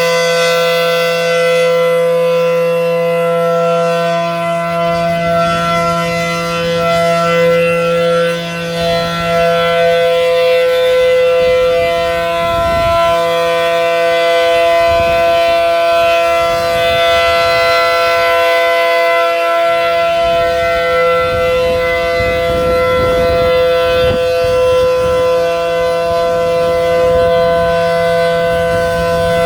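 ACA Allertor 125 outdoor warning siren sounding a steady tone during a siren test. The pitch holds level throughout, and irregular low rumbles lie underneath it.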